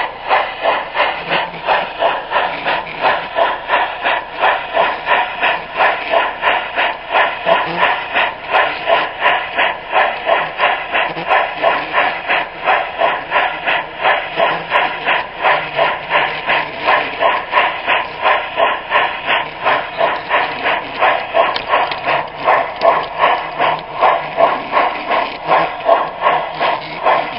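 Large-scale garden railway train running along the track, heard from the camera car riding on it: a steady, even rhythmic beat about three times a second with a hissy edge.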